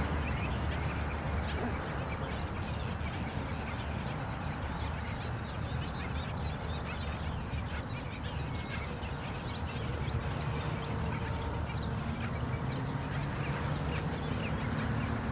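Black skimmer colony calling: many short, high calls over a steady low rumble, the calls thicker from about two-thirds of the way in.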